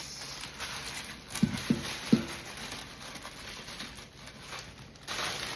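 Cardboard and paper packaging rustling as an enamel-on-steel stockpot and its lid are unpacked, with three quick knocks that ring briefly, about a second and a half in.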